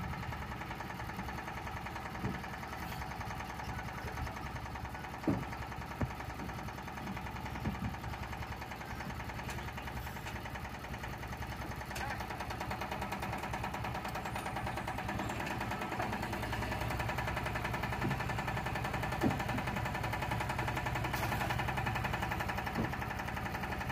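Single-cylinder Yanmar TS diesel engine powering a HIAB 140 crane, running steadily and growing a little louder about two-thirds in, with a few short sharp knocks over it.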